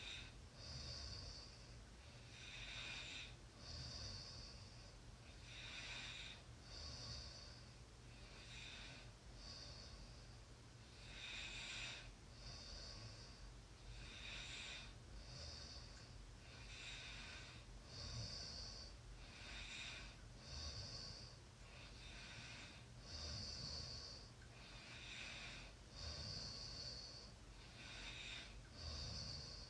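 Faint snoring: a sleeper's noisy, hissing breaths in and out, repeating evenly at about one breath every two to three seconds over a steady low hum.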